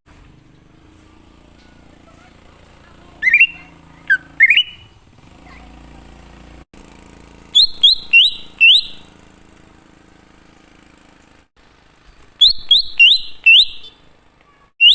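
Greater green leafbird (cucak ijo) singing loud, clear whistles: first a couple of rising whistles, then phrases of four quick, sharply hooked whistles, repeated twice more. A faint steady low hum lies underneath.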